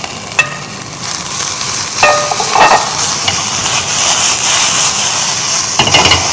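Vegetables and Tonkin jasmine flowers stir-frying in a pan over high heat: a steady hissing sizzle that grows louder about a second in and again about two seconds in. A few sharp clinks of a utensil against the pan ring briefly.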